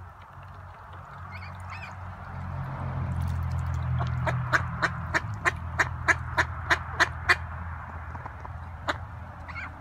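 Ducks quacking: a rapid, even series of about ten short quacks, about three a second, over a low rumble.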